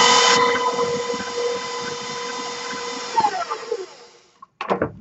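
KitchenAid stand mixer running with a steady motor whine as its flat beater mixes cake batter in a stainless bowl, then switched off about three seconds in, the whine falling in pitch as the motor winds down to a stop.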